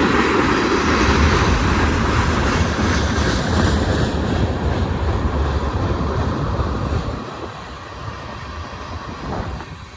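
Freight cars of a BNSF manifest train rolling past, a loud steady rumble of steel wheels on the rails. It falls off sharply about seven seconds in.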